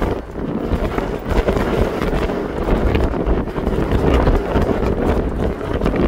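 Wind buffeting the microphone on the deck of a moving ferry: a low rumble that swells and dips.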